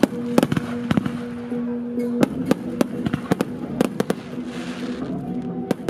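Aerial fireworks bursting in a dozen or so sharp, irregular bangs, with a crackling fizz about four and a half seconds in.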